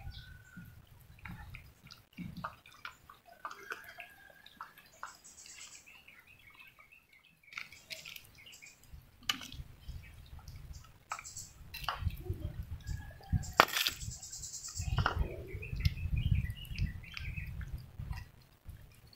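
Cats eating from bowls: scattered clicks and smacks of chewing kibble and wet food, with birds chirping in the background and one sharp click a little past halfway.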